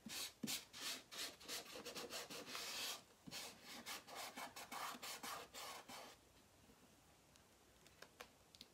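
Fingers rubbing and smoothing a Chalk Couture silkscreen transfer down onto a framed board, the plastic sheet scuffing in quick repeated strokes. After about six seconds the rubbing stops, leaving only a couple of light ticks.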